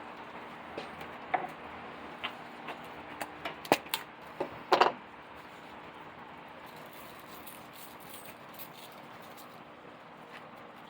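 A series of light clicks and knocks of items handled on a kitchen counter, bunched in the first half with two louder knocks a little past the middle of that stretch, over a steady low hum.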